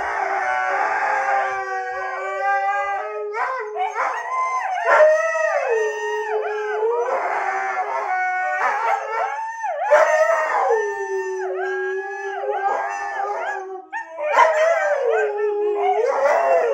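Several huskies howling together in long, overlapping howls that glide up and down in pitch, breaking off briefly about fourteen seconds in before starting up again.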